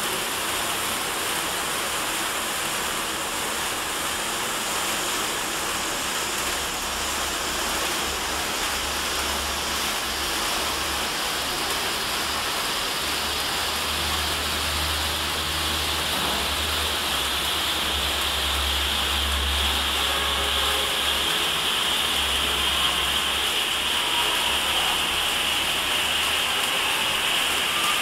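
Four ice fountain cake sparklers burning together with a steady hissing fizz of sparks, growing a little brighter in the second half. A faint low rumble comes and goes underneath in the middle.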